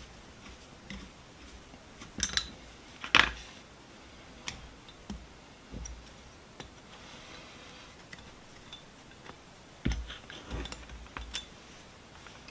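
Scattered clicks, clinks and light knocks of metal vise parts and tools being handled during disassembly, with a sharper knock about three seconds in and a few more near the end.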